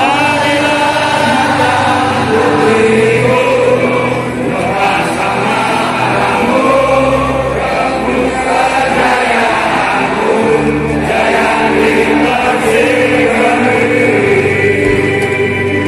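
Music: a song with group singing over sustained chords.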